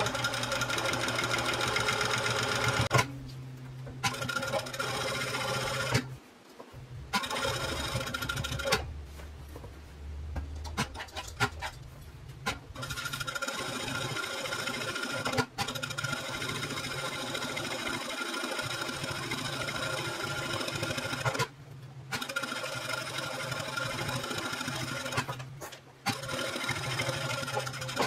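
Juki industrial lockstitch sewing machine stitching steadily around the curved edge of a fabric piece, in runs of several seconds with a few brief stops as the work is repositioned.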